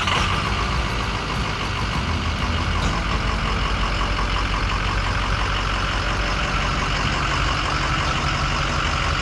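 Truck engine running steadily, with a constant rushing noise over its low hum.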